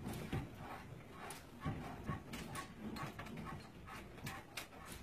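An apartment creaking and rattling while it shakes in a strong earthquake: faint, irregular knocks and clicks, several a second.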